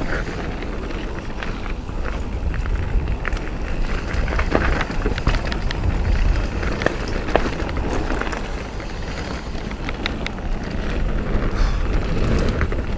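Mountain bike descending a dirt and gravel trail: tyres rolling and crunching over the surface under a steady low rumble, with many scattered short clicks and rattles from the bike.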